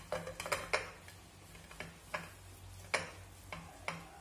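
A gloved hand rubbing and loosening damp couscous grains in a stainless steel pot, breaking up lumps so the grains stay separate. It gives irregular light clicks and ticks, a cluster of them near the start and then single ones every half second to second, over a low steady hum.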